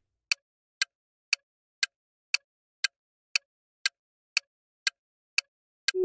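Countdown-timer tick sound effect: evenly spaced clock-like ticks, about two a second, twelve in all. A tuneful chime starts right at the end, with the answer reveal.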